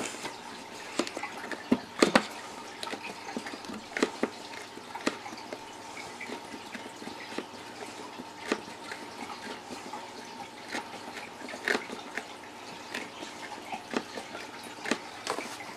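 Hand-turned tapered reamer shaving out a hole in a plastic tackle box lid: irregular small clicks and scrapes as the blade bites the plastic, a few of them louder.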